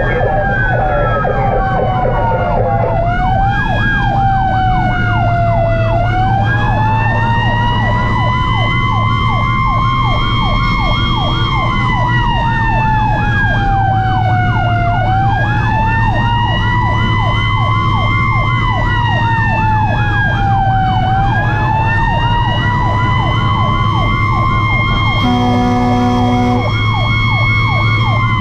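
Fire truck sirens sounding while driving: one slow wail rising and falling about every six seconds, with a faster sweeping siren under it, over a steady truck engine drone. A horn blast of about a second and a half comes near the end.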